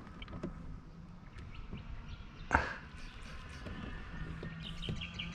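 A single sharp knock on the kayak about two and a half seconds in, among faint small clicks of gear being handled. Near the end a bird trills, a quick run of high chirps.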